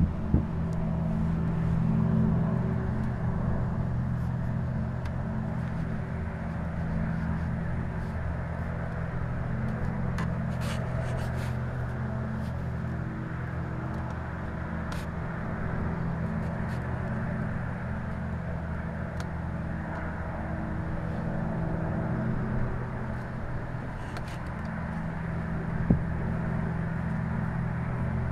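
Steady low industrial hum made of several fixed low tones over a rushing background, which the recordist blames on the Alcoa aluminium plant and calls a ringing that makes it hard to sleep. A couple of faint clicks, one about a second in and one near the end.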